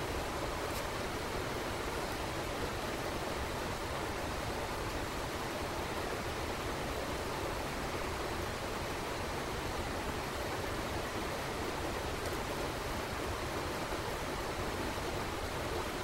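Steady, even background hiss with no rhythm or pitch, and a few faint ticks.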